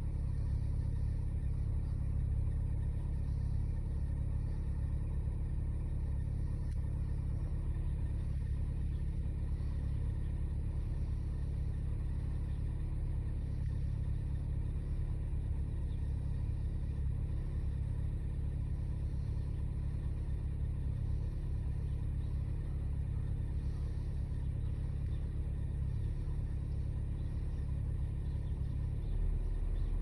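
Car engine idling, a steady low rumble heard from inside the cabin; near the end the rumble shifts lower.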